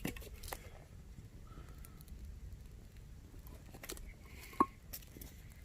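Faint, scattered crackling and ticking of burning or handled bark and twigs, with one sharper snap about four and a half seconds in.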